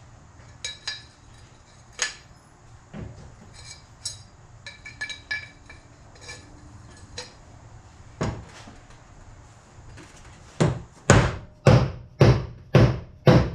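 Light metallic clinks as tools and the camshaft are handled, then a quick run of about six hard hammer blows, roughly two a second, near the end, knocking the bearing off a camshaft.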